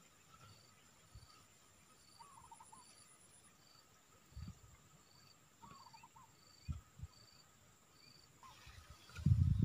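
Insects calling: a steady high whine with a chirp repeating a little under twice a second, and a short warbling call every three or four seconds. A few soft low thumps come in the middle, and a louder low rumble near the end.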